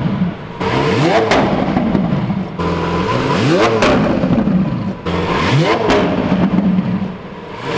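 Lamborghini Centenario's 6.5-litre V12 being revved from idle three times, each rev climbing quickly and dropping back to a steady idle, with a fourth rev starting at the end.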